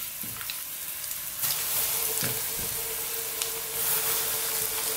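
Hot oil sizzling in a frying pan as corn-flour-coated chicken pieces are laid into it to fry. The sizzle grows louder about a second and a half in.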